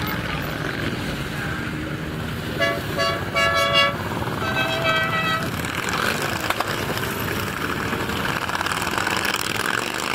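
A column of motorcycles rides past with engines running. Horns honk: about three short toots two and a half seconds in, then a second horn at a higher pitch about a second later.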